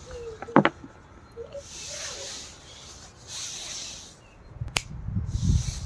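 A bird calling outdoors, a few short curving calls, with two sharp taps, one about half a second in and one near the end, and soft breathy hissing in between. A low rumble comes in near the end.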